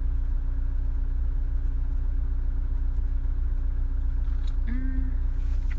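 Car running, heard from inside the cabin: a steady low hum. A short hummed 'mm' from a voice comes about five seconds in.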